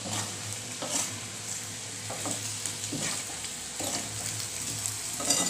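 Potato wedges frying in oil in a kadai, sizzling steadily while a spatula stirs in grated ginger and green chillies, scraping against the pan every second or so.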